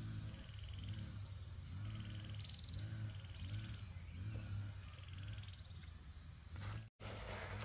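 Repeated short, low animal calls, roughly two a second in runs, over faint high pulsed trilling.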